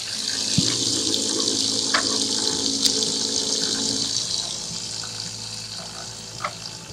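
Water rushing and gurgling through a custom split-radiator coolant loop, pushed by a generic automotive electric coolant pump running on 12 volts at only half an amp, with a low steady hum under it. The rush is strongest for the first few seconds and then fades, with a few small clicks along the way.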